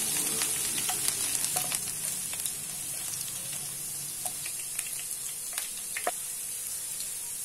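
Chopped garlic sizzling in hot oil in a non-stick kadai: a steady hiss with scattered small pops, while a wooden spatula stirs it.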